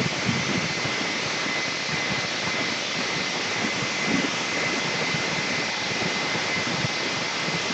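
Handheld hair dryer running steadily, an even rush of air with a faint high whine.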